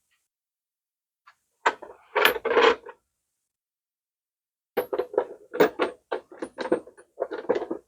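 Hand tools knocking and clinking on metal while a big engine nut is being worked: a short cluster of clanks, then about a dozen quick strokes at roughly four a second.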